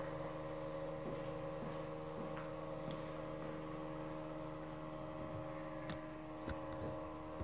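Drive of a motorised linear carriage running as it moves the carriage along an aluminium rail: a steady hum made of several even tones, with a few faint clicks in the second half. This is a test run showing that the axis works after a damaged cable connector was replaced.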